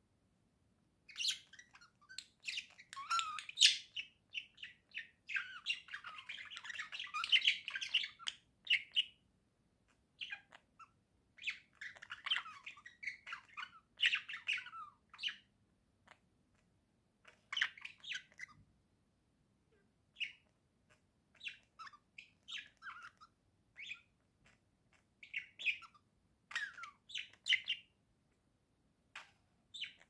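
Budgerigars warbling and chirping in quick, broken bursts with the odd squawk, starting about a second in; the chatter is densest in the first half and thins to scattered short chirps later.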